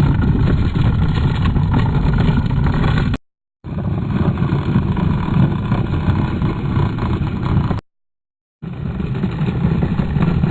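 Skateboard wheels rolling over pavement: a loud, steady, low rumble, broken twice by abrupt cuts to total silence.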